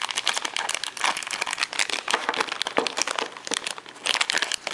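Foil wrapper of a Vinylmation blind-box figure crinkling in a continuous stream of sharp crackles as it is handled and unwrapped by hand.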